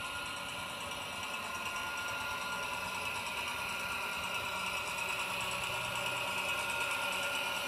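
Simulated diesel engine sound from a Loksound sound decoder in an LGB model shunting locomotive, played through its small speaker and running steadily at idle, with a deeper hum coming in about halfway through.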